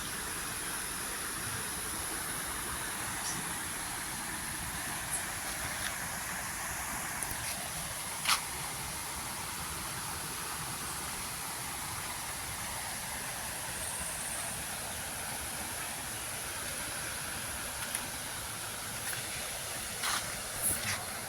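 River water running, a steady rushing hiss, with a few sharp clicks on top, the loudest about eight seconds in and several more near the end.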